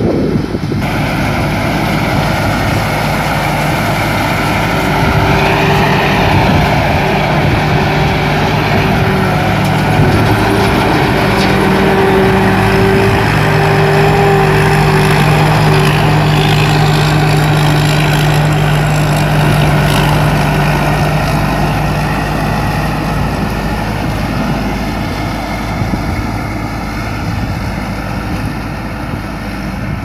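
Rice combine harvester's diesel engine and threshing machinery running steadily under load while cutting rice, louder as the machine passes close and easing slightly as it moves away near the end.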